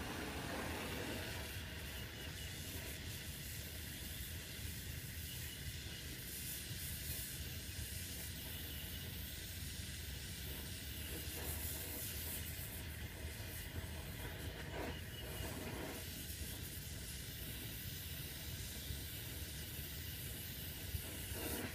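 Gas torch flame hissing steadily as it heats a copper refrigerant-line fitting on an evaporator coil for soldering.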